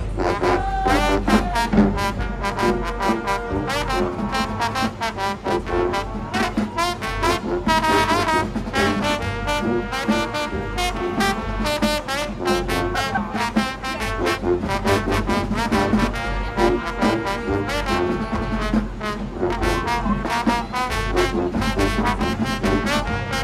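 Marching band playing, with trombones and trumpets carrying the tune over frequent sharp drum hits.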